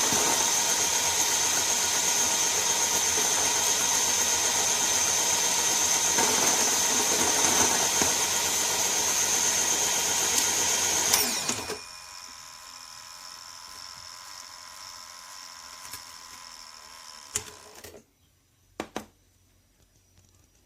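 Electric conical burr coffee grinder (BEEM 3980 Grind-Intense) running steadily with a high whine, then switched off about 11 seconds in, the motor winding down quickly. A fainter steady hum and a few light clicks follow near the end.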